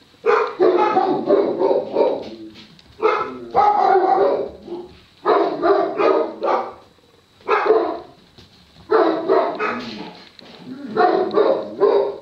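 Dog barking in repeated runs, about six quick volleys of barks a second or so apart.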